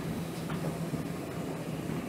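GWR auto train, the 1400-class tank engine 1450 with its auto coach, running past: a steady rolling rumble of wheels on rails under a constant low hum.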